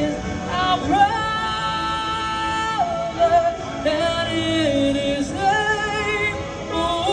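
Amplified singing with musical accompaniment through Alto PA speakers: long held notes that waver in vibrato and slide between pitches.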